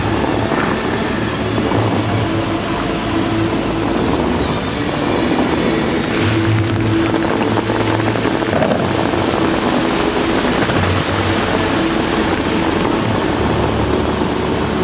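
Bellagio fountain water jets spraying, a steady rush of falling water, over the show's music with long held low notes.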